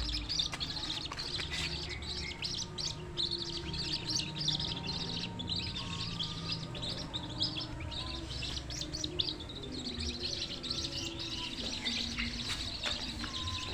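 Many small birds chirping at once, a dense, continuous chorus of short high chirps and tweets.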